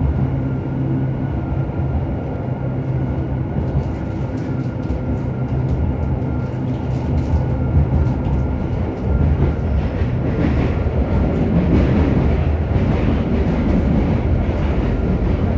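Running sound inside a JR Hokkaido 731 series electric train car, MoHa 731-109: a steady low hum from the traction motor with wheel-on-rail rumble and clicks, the rumble growing louder after about ten seconds. The low motor drone is an abnormal noise from the motor on the car's Otaru-end bogie, a roar like an old nose-suspended-motor train.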